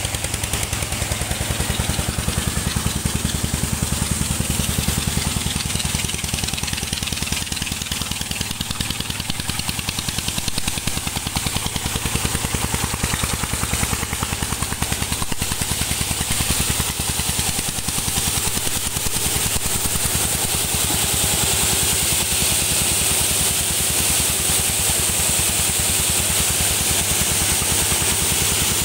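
Engine of a mobile coffee huller running steadily at a fast, even beat while it hulls dried coffee cherries.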